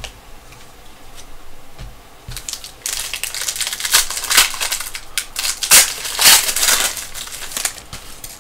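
Foil wrapper of a Prizm basketball card pack crinkling and tearing as it is ripped open. A few light clicks come first, then a loud spell of crackly rustling starts about three seconds in.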